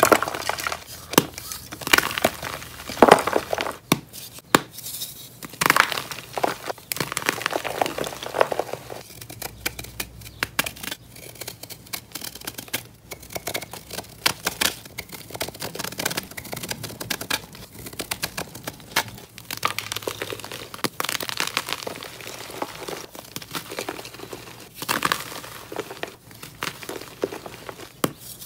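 Soft gym chalk blocks being crushed and crumbled by hand and cut with a knife: dry, crunchy crumbling with many sharp crackles, in uneven clusters.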